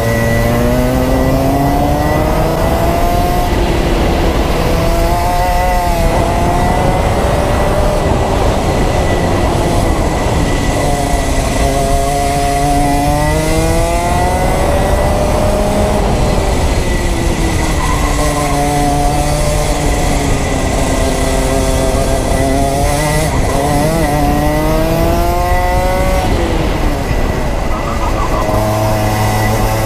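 Rotax Max 125 cc single-cylinder two-stroke kart engine heard onboard at racing speed. Its pitch climbs and drops again and again as it accelerates and slows through the lap, over a steady rush of noise.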